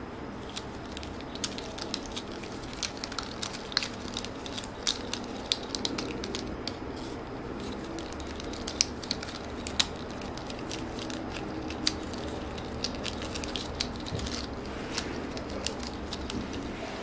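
A plastic drinking-straw tangle toy being twisted and folded in the hands: many small, irregular clicks and crackles as the straw pieces rub and knock against each other, over a steady hiss.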